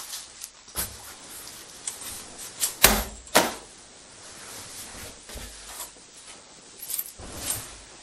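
A few scattered knocks and thuds, the two loudest about half a second apart around three seconds in, with weaker ones before and after.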